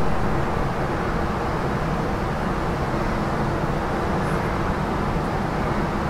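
Steady city street ambience: an even hiss and rumble of distant traffic, with no distinct calls or knocks standing out.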